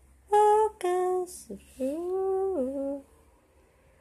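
A woman humming three notes, the third held longest and dropping in pitch at its end.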